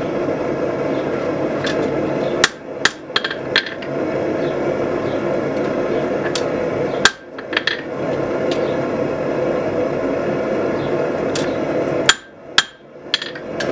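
Hammer tapping a hot forged steel knife blade against the anvil: scattered single light strikes, a dozen or so, to straighten the blade after forging. A steady running noise sits under the strikes throughout.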